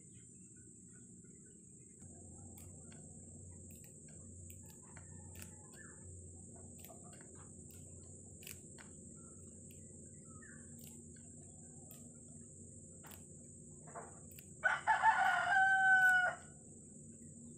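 A rooster crowing once near the end, one loud call of under two seconds. Before it there are only faint scattered clicks.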